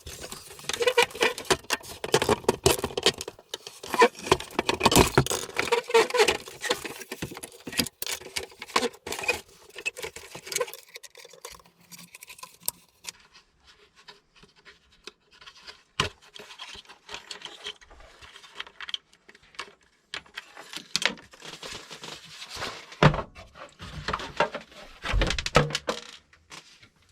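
Vacuum cleaner parts being handled during disassembly: dense clattering, scraping and rattling for about the first ten seconds, then scattered clicks, with a couple of heavier knocks near the end.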